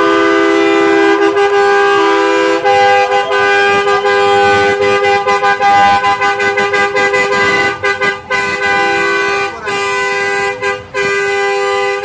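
Semi-truck air horns sounding a loud, steady chord of several notes, held almost without a break; the sound drops out briefly a few times in the second half.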